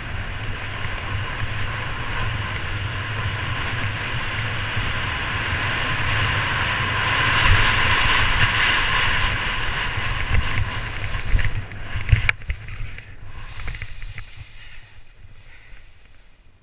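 Nordica Helldorado skis running fast over sun-cupped summer snow: a steady scraping hiss of the skis on the rough, lumpy surface, with wind buffeting the microphone as a low rumble. It builds to its loudest about two thirds of the way through, gives a few sharp knocks, then dies down toward the end.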